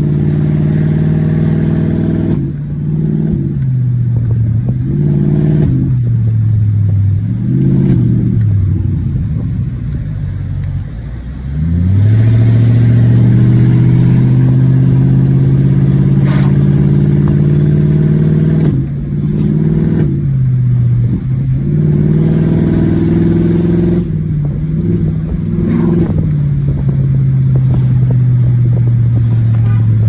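BMW 745's engine heard from inside the cabin while driving, running again after a no-start. Its pitch rises and falls several times through gear changes in the first half, then holds steady at cruise with a couple of brief dips.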